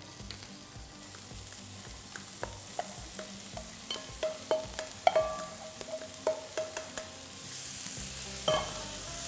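Chopped onion sizzling in hot clarified butter in a frying pan, with many sharp metallic clicks and taps as it is scraped out of a steel bowl and moved around the pan. The sizzle grows louder in the last couple of seconds as the onion is stirred.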